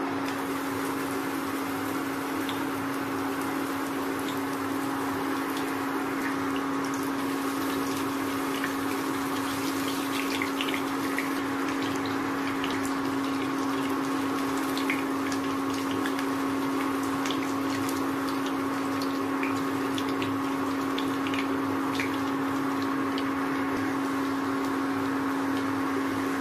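Breaded chicken drumsticks frying in hot oil, a steady sizzle with scattered small crackles and pops starting just after the first drumstick goes in. Under it runs the steady hum of the induction cooktop.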